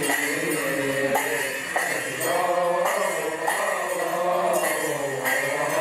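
Coptic Easter liturgy hymn chanted by several voices, with a percussion instrument struck at a steady beat.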